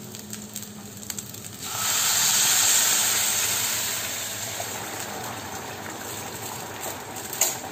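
Boiled water poured from a steel vessel into a hot pan of ghee-fried basmati rice: after a faint frying sizzle with a few spatula clicks, the water hits the pan about two seconds in with a sudden loud rush that slowly dies away into a gentler pouring sound.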